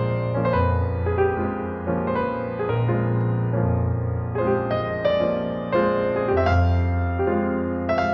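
Slow, gentle piano music: single notes struck about twice a second over held bass notes that change every couple of seconds.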